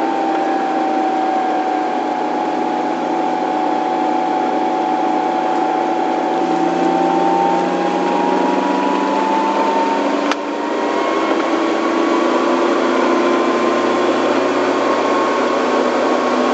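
1974 MG Midget's 1275 cc A-series four-cylinder engine running as the car is driven, its note slowly rising in pitch. There is a brief sharp click and a short dip about ten seconds in.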